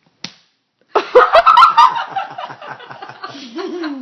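A burst of laughter starting about a second in, loudest at first, in quick rhythmic pulses that tail off toward the end.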